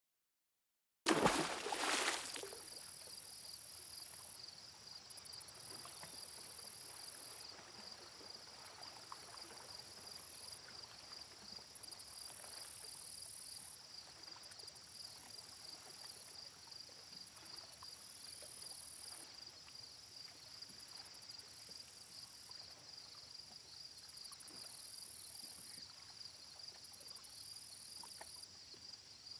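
Insects chirring: a steady, finely pulsing high trill with a still higher, louder buzz that switches on and off every few seconds. It opens with a short loud rush of noise about a second in.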